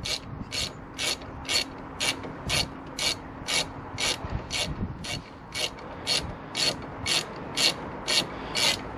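Socket ratchet clicking on each back-swing, about twice a second, as the 7 mm rear brake caliper guide pin bolts are nipped up by hand.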